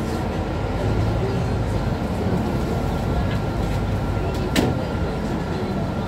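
Inside a Mercedes-Benz Citaro C2 city bus under way: steady engine and road rumble with a faint steady whine, and one sharp knock about four and a half seconds in.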